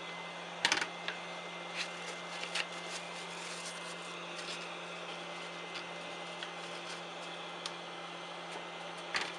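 Steady hum and hiss with a few light, sharp clicks: one about a second in, two more around two seconds in, and another near the end.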